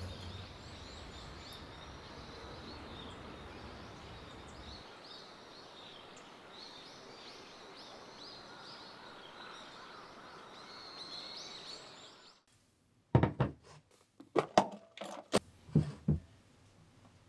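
Small birds chirping over a steady background hiss for about twelve seconds. After a brief gap come several sharp clacks and knocks as a glass mixing bowl and an electric hand mixer are set down on a kitchen counter.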